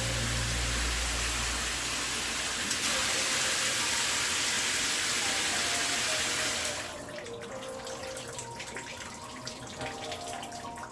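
Water spraying from a handheld shower head, a steady full hiss that turns quieter and more spattering about seven seconds in.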